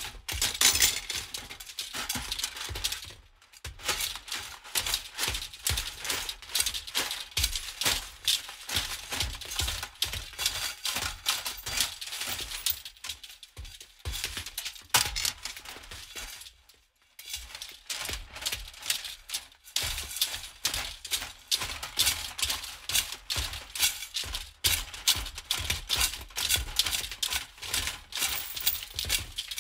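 Close-up clicking and clattering of small metal and plastic parts being handled: screws and tools as a 3D printer's upper frame is fastened to its base and cable connectors are plugged in. The handling noise runs in quick irregular clicks, broken by a few short pauses.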